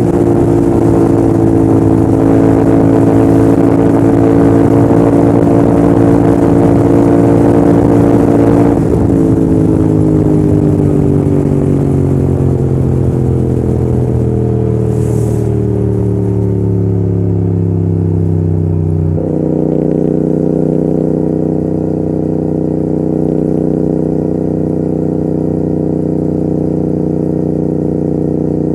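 Royal Enfield Continental GT650's parallel-twin engine running steadily at speed with wind rush. About nine seconds in, the engine note falls steadily as the bike slows off the throttle, then about ten seconds later it jumps up suddenly and runs on steadily with less wind.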